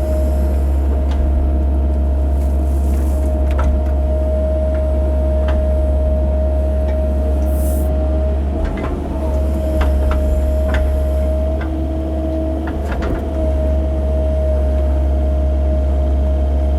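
Cat 308 mini excavator's diesel engine running steadily under working load, with a steady high whine over the low drone and scattered sharp knocks as it digs.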